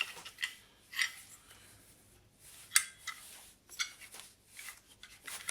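Scattered light clicks and clinks of the Bosch PBD 40 bench drill's hard parts being handled while unpacking, with a sharper clink a little under three seconds in.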